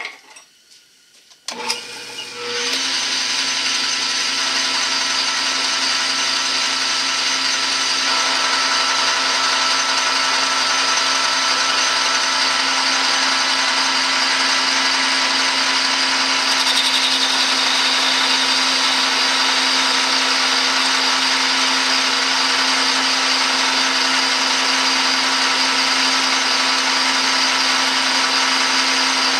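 Metal lathe starting up about two seconds in and running steadily, its motor and gears giving a whine made of several steady tones. A little past halfway a higher hiss joins as the tool begins a turning cut, taking about 70 thousandths off the diameter.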